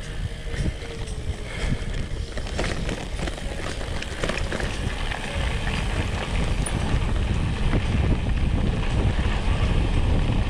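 Wind rushing over an action camera's microphone while a Priority 600X trail bike rolls over a dirt singletrack trail, rattling with many short knocks and clicks over bumps. It grows louder toward the end.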